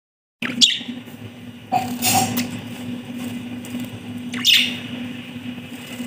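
Budgerigars chirping, with a sharp falling call near the start and another about four and a half seconds in, and a brief rustling burst around two seconds in.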